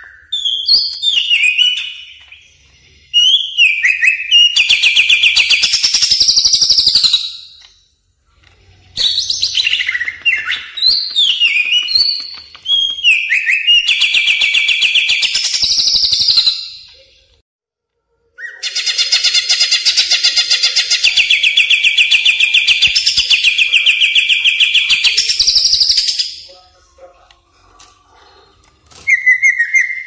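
Song of a cucak ijo (green leafbird), a masteran track of the kind played to train or lure birds. Short whistled notes that slide up and down lead into long, fast, even trills, in phrases of several seconds with brief pauses between them; the longest trill runs for about seven seconds in the second half.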